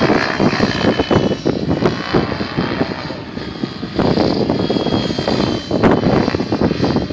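GAUI X7 radio-controlled helicopter flying overhead: a steady rush of rotor and motor noise with a faint high whine, dipping in level midway and swelling again.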